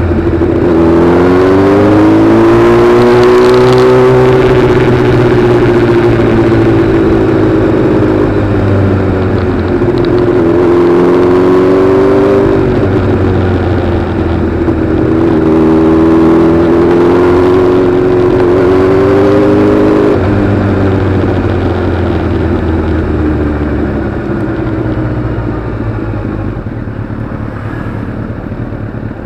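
Road vehicle's engine under throttle, its pitch climbing and sagging as it pulls. The pitch drops sharply about twelve seconds in and again about twenty seconds in, as at a gear change or easing off. After that the engine note fades into a lower rumble and road noise as it coasts.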